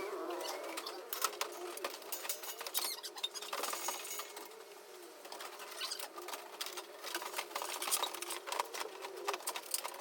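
Rapid, irregular clicks and taps of hand tools and wire being handled during electrical wiring work, with a few faint squeaky sounds that rise and fall in pitch.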